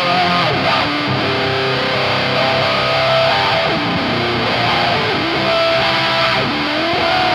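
Electric guitar played through a Dolamo D-2 fuzz pedal with a Dunlop 535Q mini wah in the chain: a distorted line of held notes and short runs, with a few sweeping glides in tone.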